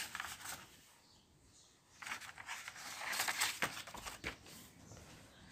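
Faint rustling and crinkling with scattered clicks, starting about two seconds in after a brief silence.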